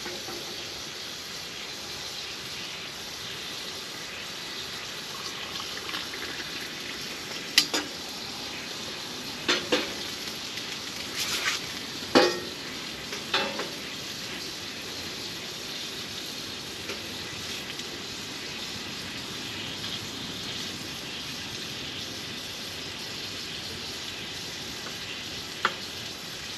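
Potato sausage frying in a cast iron pan, a steady sizzle as it is charred. A few sharp knocks and clinks stand out between about 7 and 14 seconds in, with one more near the end.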